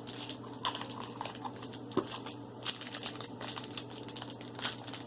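Crinkling and crackling of a Shopkins mystery toy's package being handled and torn open by hand: many short, irregular crackles and small clicks.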